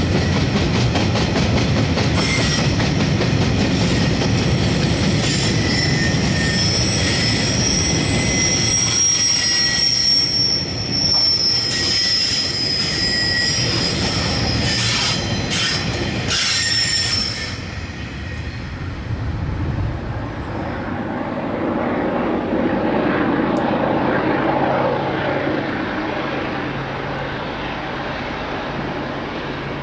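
Railway wagons of a KiwiRail train rolling past, their wheels squealing on the rails with a high, steady screech over a rumble, and clicking over rail joints. The squeal stops about 18 seconds in, and a lower rumble carries on.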